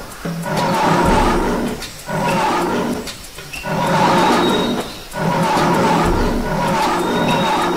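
Lion roaring repeatedly: about four long roars in a row, each a second or more, with short pauses between them. It is a recorded lion roar sound effect.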